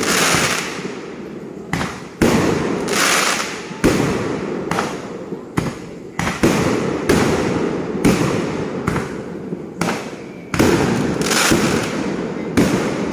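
Fireworks going off in quick succession, a dozen or so bangs about one to two seconds apart, each fading out over a second or so before the next.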